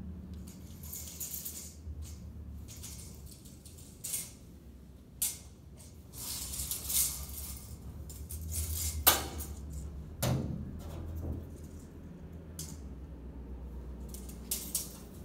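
Steel tape measure being pulled out and handled: the metal blade rattles and clicks over and over, with two sharper metallic snaps about nine and ten seconds in, over a low steady hum.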